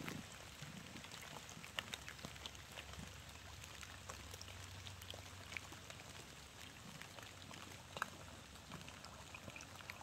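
Quiet forest ambience with scattered soft ticks and crackles, a sharper one about two seconds in and another near the end.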